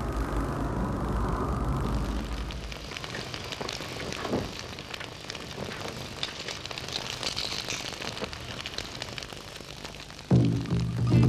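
Eerie film sound effect: a low rumble that gives way to a hissing, crackling noise. Music with held low tones comes in suddenly near the end.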